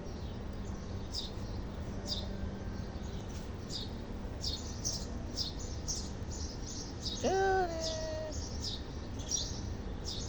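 Birds chirping over and over in short high notes. About seven seconds in, a single drawn-out kitten meow lasting about a second, dropping slightly in pitch at its end.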